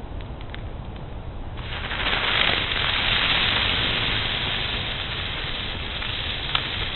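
A firework fountain hissing as it sprays sparks. It starts suddenly about one and a half seconds in, is loudest soon after, then slowly fades, with one sharp pop near the end.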